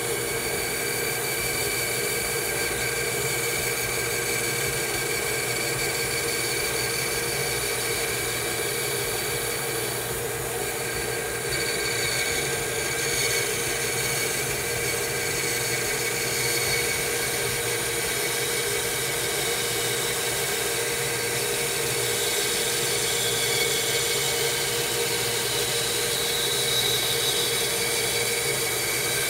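Bandsaw running steadily with a constant motor hum and blade whine as its blade cuts slowly through a thick wooden block, fed gently rather than forced.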